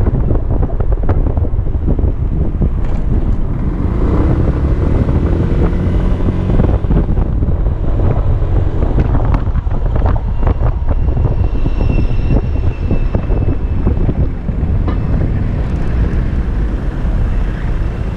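Heavy wind buffeting on the microphone while riding the Kymco Xciting 250i scooter, with its single-cylinder four-stroke engine running steadily underneath.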